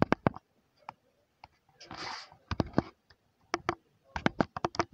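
Quick runs of clicks from keys being tapped on a smartphone's on-screen keyboard as digits are typed, with a short hissy rustle about two seconds in.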